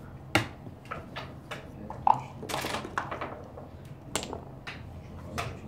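Backgammon checkers and dice clicking and knocking on the board: a series of sharp separate clicks, with a short rattling stretch about two and a half seconds in.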